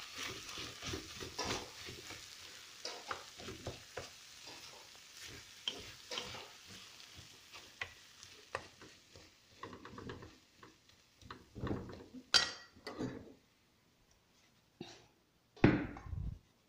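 A wooden spatula stirring and scraping ground chicken in cream sauce around a frying pan, with many small scrapes and clicks over a light sizzle that dies away. Then a few louder knocks as the pan is handled, and one heavy thump near the end.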